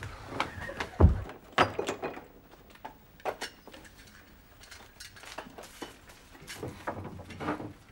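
Scattered knocks and clatters of household things being banged about, with one heavy thump about a second in and lighter knocks after it.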